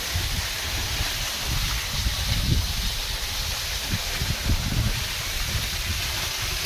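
Waterfall rushing steadily, with gusty wind buffeting the microphone in low rumbles and thumps.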